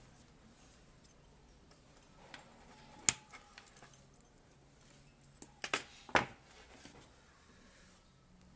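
A few sharp clicks over quiet room noise: one loud click about three seconds in, then a quick cluster of clicks a little before the six-second mark.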